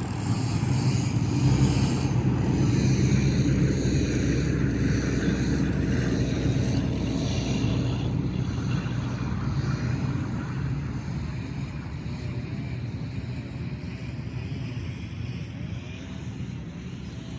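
Low engine rumble from a passing vehicle, loudest a couple of seconds in and slowly fading away.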